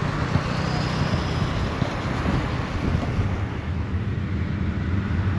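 Steady road noise inside a moving Honda Civic's cabin: a low rumble of tyres and engine with a hiss over it.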